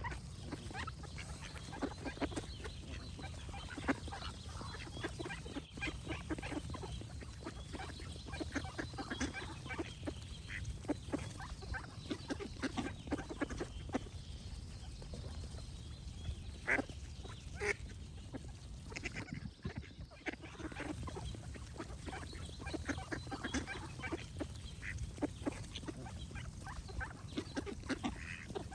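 Ducks quacking in many short, irregular calls, with birds singing, over a steady low background noise.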